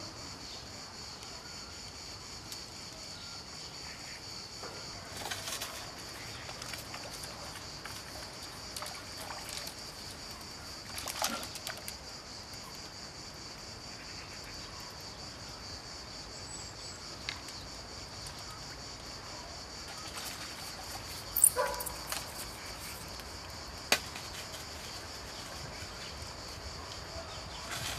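Steady high-pitched insect chirring over a riverbank, with a few short water splashes and knocks as a fish is brought to the landing net, and two sharp clicks of tackle near the end.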